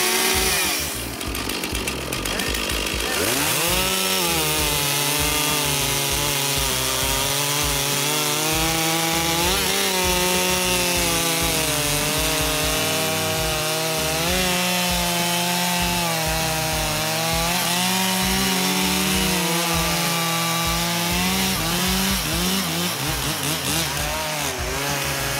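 Two two-stroke chainsaws, a Stihl and a Poulan Pro, cutting through the same log at once under load. Their two engine notes run at different pitches and waver up and down as the chains bite into the wood.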